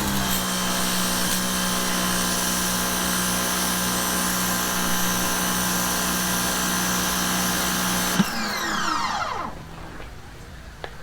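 Pressure washer motor running at a steady pitch, then switched off about eight seconds in, its pitch falling as it winds down.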